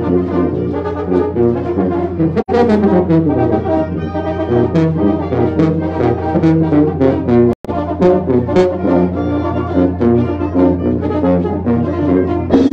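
A Mexican banda de viento playing: trumpets, trombones, alto horns, clarinets and a sousaphone over a bass drum with a mounted cymbal and a snare drum. The sound drops out for an instant twice.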